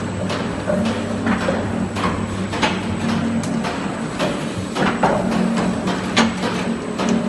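Glass mosaic machine running with a steady hum, and sharp clacks repeating about once or twice a second.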